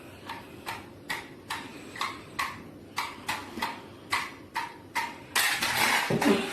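A run of light, sharp taps or clicks, about three a second and a little uneven. A louder rushing noise takes over about five seconds in.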